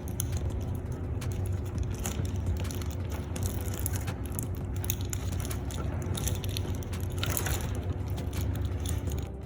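Small metallic clicks and scraping as a connector is fitted and tightened onto the armour of shielded MC cable, over a steady low hum.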